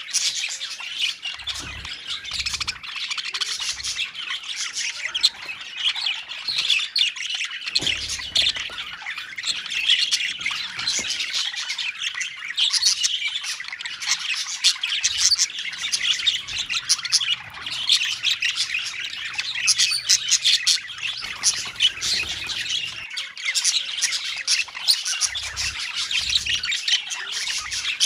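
A colony of budgerigars calling all at once: a continuous, dense chatter of quick high-pitched calls overlapping without a pause.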